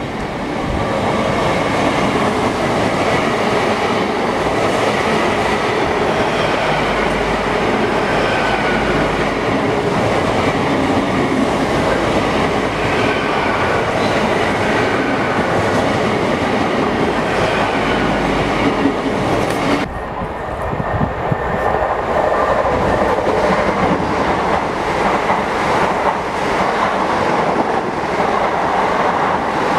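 A Great Western Railway Intercity Express Train (Class 800-series) passing through a station at speed, a steady, loud rush of wheels on rail. After a sudden cut about two-thirds of the way in, another passenger train passes in the same way.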